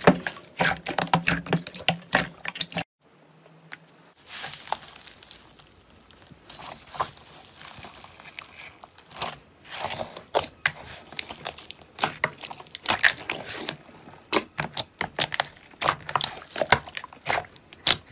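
Hands squeezing and kneading glossy slime in a bowl: wet squelching with many sharp sticky pops and crackles. A brief lull about three seconds in, then the squishing and popping start again.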